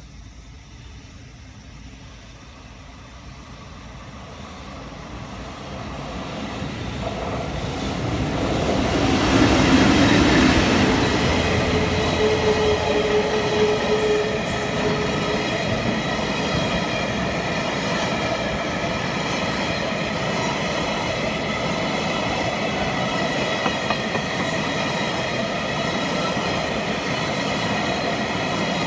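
Electric-locomotive-hauled freight train approaching and passing. It grows louder over several seconds and is loudest about ten seconds in as the front passes, then the wagons roll by in a steady rumble with a high ringing from the wheels.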